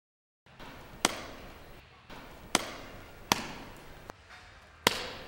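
Four sharp knocks at uneven spacing, each with a short ringing tail, over a faint steady hiss; the sound cuts in abruptly about half a second in after dead silence.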